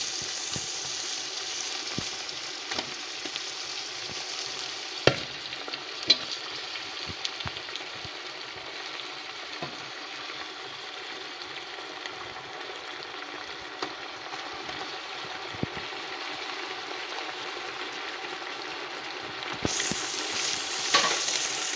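Raw chicken pieces sizzling steadily in hot oil with onions and chillies in a pot, with a metal spatula knocking against the pot a few times, sharpest about five and six seconds in.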